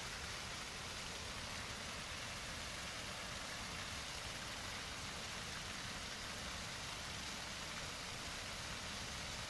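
Steady, even hiss of rushing water, with no distinct splashes standing out.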